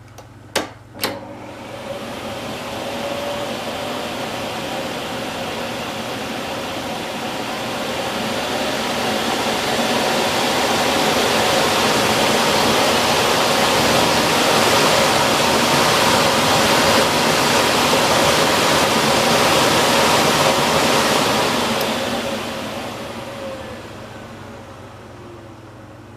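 Philips P74 canister vacuum cleaner with a twin-turbine motor, switched on with two clicks and running up to a steady rush of air and motor whine. It grows louder about a third of the way in and holds steady. Near the end it is switched off and winds down with a falling tone.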